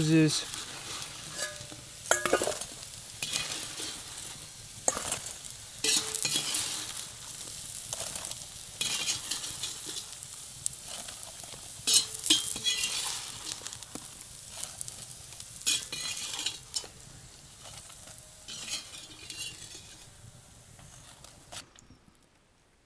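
Potatoes and sausage frying in a pan, sizzling steadily, with a utensil stirring and knocking against the pan every second or two. The sizzle fades gradually and cuts off near the end.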